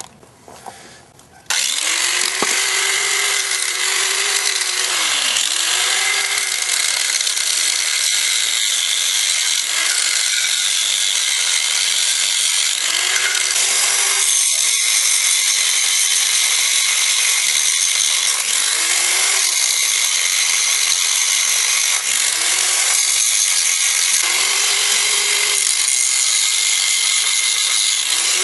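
Angle grinder with a cutting disc starting up about a second and a half in, then cutting through the steel shell of a hermetic refrigeration compressor. The motor's whine dips and recovers every couple of seconds as the disc bites into the metal.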